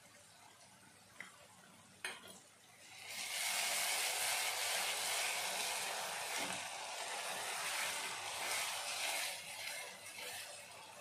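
Onion-tomato masala sizzling in a frying pan as it is stirred with a spatula; a knock about two seconds in, then the sizzle comes up loud about three seconds in and eases off near the end.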